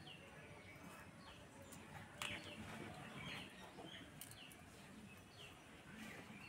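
Faint, repeated short falling chirps of a small bird in the background, coming about once a second. There is a soft click about two seconds in.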